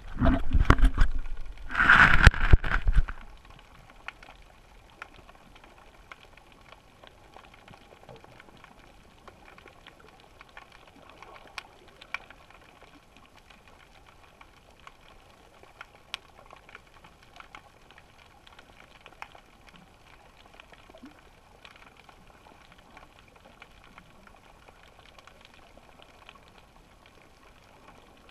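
Underwater sound through a GoPro's waterproof housing. The first three seconds hold loud rushing and knocking as the camera is handled and moved. After that there is a faint steady hiss with scattered small clicks and ticks.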